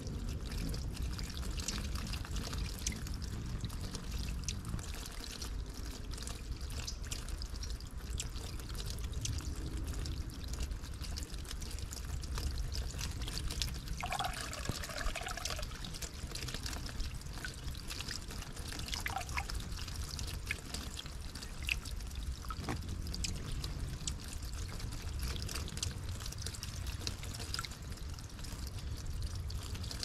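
Water running and trickling in a small garden stream, a steady flow throughout, with a few brief bird chirps about halfway through.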